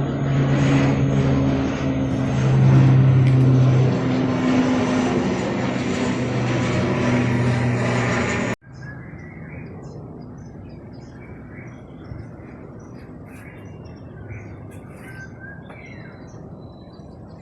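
Military transport aircraft flying overhead: a loud, steady engine drone with a low hum, which cuts off abruptly about eight and a half seconds in. After that, a much quieter outdoor background with birds chirping.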